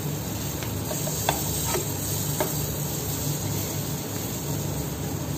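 Aubergine slices sizzling in oil in an aluminium frying pan, a steady frying hiss. A few light metal clicks in the first half.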